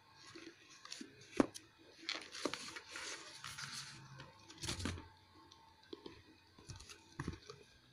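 Cardboard packaging being handled: a shipping carton and its cardboard insert rustling and scraping against the mouse's retail box, with a few sharp knocks as pieces bump together, the loudest about a second and a half in.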